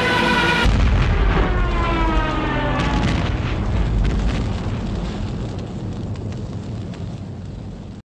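Junkers Ju 87 Stuka dive bomber's "Jericho Trumpet" siren wailing, then falling in pitch over a couple of seconds. Heavy low rumble and sharp cracks of bomb explosions come in about a second in, and the whole sound gradually fades.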